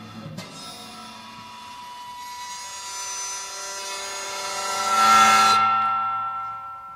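Prepared string instrument played with an object against its strings: a rasping, buzzing noise over several steady ringing pitched tones, swelling over several seconds and cutting off suddenly about five and a half seconds in, leaving the tones ringing.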